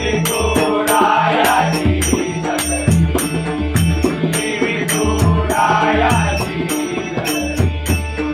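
Devotional abhang bhajan: a pakhawaj drum plays a steady rhythm of deep and sharp strokes under bright, evenly spaced hand-cymbal strikes, with chant-like sung lines around one second and again around six seconds in.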